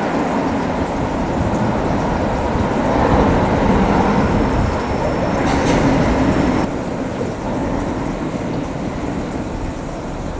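Railway rolling stock moving slowly through a depot yard: a steady rumble of train running noise. A thin high tone joins for a couple of seconds, and the noise drops suddenly a little past halfway.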